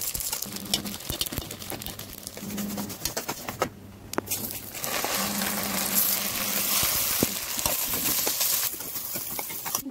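Vermicelli and rice frying in hot fat in a pot, sizzling and crackling. There is a short lull about four seconds in, and the sizzling is louder from about five seconds.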